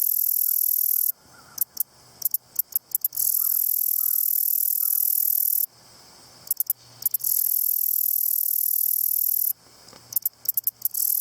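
Grasshopper stridulating: a loud, high-pitched buzz held for about two and a half seconds at a time. Each buzz starts with a short run of stuttering ticks, and the pattern repeats three times.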